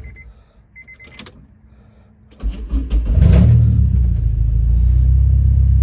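Honda K24 2.4-litre four-cylinder engine in an Accord, started on a freshly replaced starter. After a short pause with two brief electronic beeps, the starter cranks about two and a half seconds in, the engine catches, revs up briefly and settles into a steady idle.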